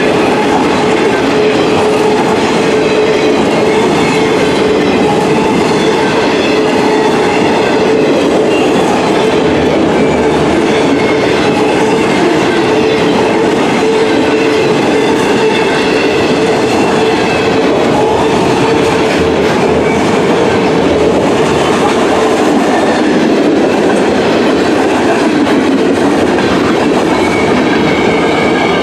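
Freight cars of a long mixed freight train rolling past close by, autoracks and then open-top hopper cars. The sound is a loud, even noise of steel wheels on rail with a steady whining tone running under it.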